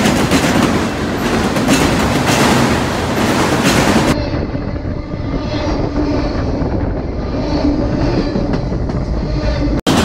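Union Pacific freight train of autorack cars rolling past, steel wheels clattering over the rail joints in a steady loud rumble. About four seconds in, the sound turns duller as it is heard from between the rails beneath the passing cars; it switches back to trackside sound just before the end.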